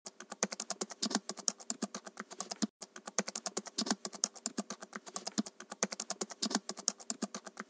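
Fast typing on a computer keyboard: a rapid, steady run of key clicks, several a second, with a brief break about two and a half seconds in.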